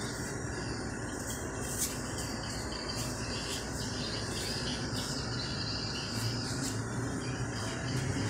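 Steady high-pitched chirring of insects in the background, over a low hum that swells slightly near the end, with a single sharp click about two seconds in.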